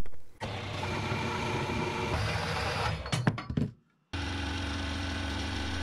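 Horizontal metal-cutting bandsaw running, slicing through scrap aluminium with a steady motor hum. The sound cuts out briefly just before four seconds in, then carries on.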